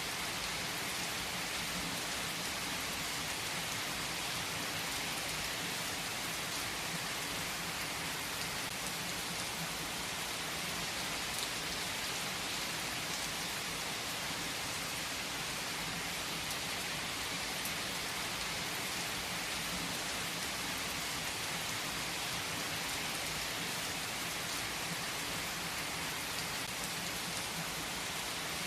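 Steady rain falling in an even hiss, with a few faint scattered clicks.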